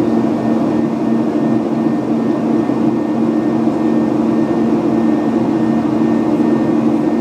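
Steady in-cabin drone of a Boeing 737-800 in flight: its CFM56-7B jet engines and the airflow over the fuselage, with a steady low hum and no change in pitch.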